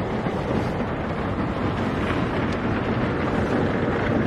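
Heavy rain pelting the roof of an RV, heard from inside: a dense, steady pitter-patter, super loud, like hail.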